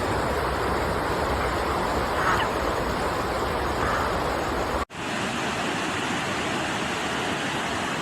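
Steady rushing noise of water and wind, with a couple of faint short honks in the first half. About five seconds in it cuts off abruptly and gives way to a different stretch of steady rushing noise.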